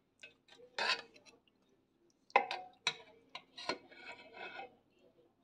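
Metal spoon scraping and knocking against cookware: a scrape about a second in, three sharp knocks in the middle, then a short rasping scrape.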